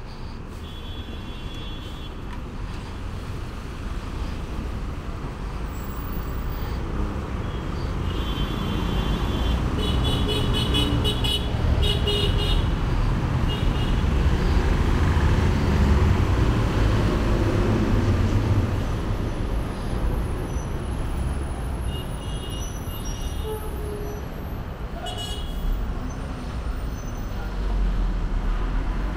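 Street traffic: engines rumbling, swelling as a vehicle passes close through the middle, with short car horn toots near the start, in a cluster in the middle and again near the end.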